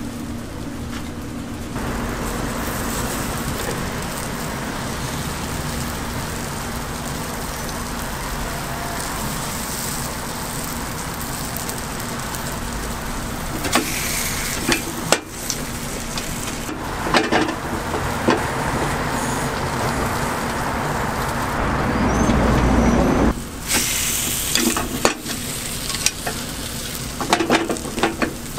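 Bungeoppang batter sizzling steadily in hot fish-shaped iron molds, with scattered clicks and knocks from the molds being worked.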